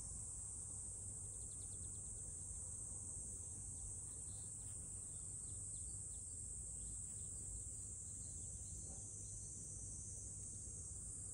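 Steady, high-pitched chorus of insects, with a faint low rumble underneath.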